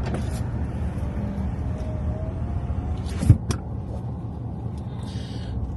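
Car engine idling with a steady low rumble inside the cabin, and a single short thump about three seconds in.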